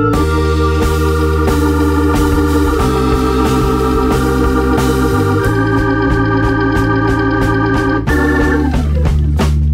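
Background music of sustained keyboard chords over a steady bass, the chord changing every few seconds.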